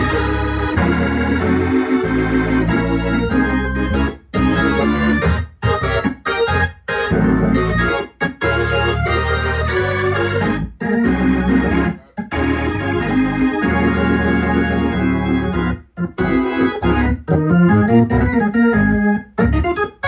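Hammond C3 organ played through a two-speed Leslie 22R speaker: full chords in phrases, broken several times by sudden short stops.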